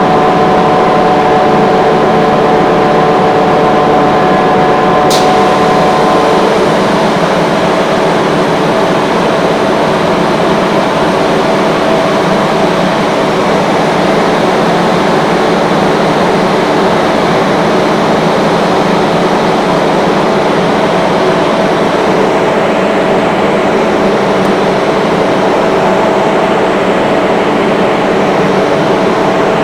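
Rotary screw air compressor running loud and steady, with a mechanical hum made of several steady tones. About six seconds in the tones shift to a new pitch as the variable-speed drive changes speed.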